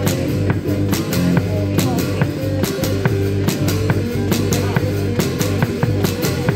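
Live rock band playing: a drum kit keeps a steady beat of sharp hits over sustained guitar and bass notes.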